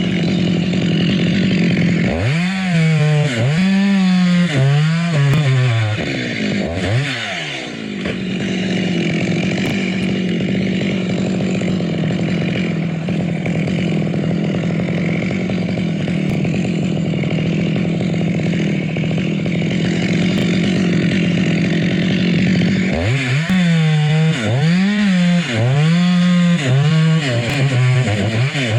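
Chainsaw running at high speed and cutting wood. Its engine note dips and recovers again and again from about two to seven seconds in, and again from about twenty-three seconds in, as the chain bites and eases in the cut.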